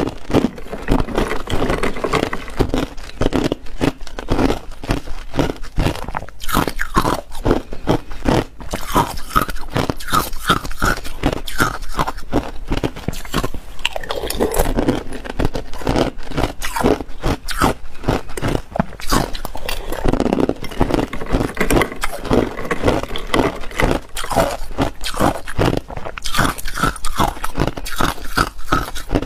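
Hard ice cubes being bitten and chewed into a close clip-on microphone: a fast, continuous run of loud crunches and cracks, with a few short pauses.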